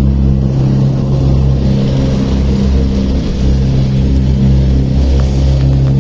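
Motorboat engine running steadily under way, a low even hum that holds its pitch.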